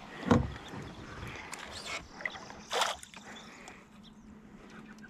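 Small sounds of a kayak on the water while a hooked smallmouth bass is fought: a sharp knock just after the start and a short splash near three seconds in, over a low wash of water and wind noise.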